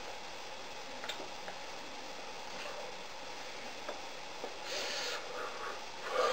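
Faint taps and rustles of hands and clothing during sign language, over a steady background hiss, with a louder rustle about five seconds in and another right at the end.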